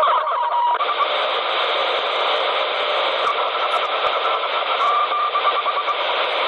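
CB radio speaker giving a loud, steady hiss of static while it receives a weak, noisy transmission, with faint whistling tones coming through briefly near the start and again about five seconds in.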